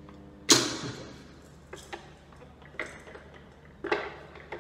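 Steady AC hum of an oil-immersed star-delta starter's energised contactors, cut off about half a second in by a loud clunk as the contactors drop out and the starter switches off. A few light clicks follow, with a sharper click near the end.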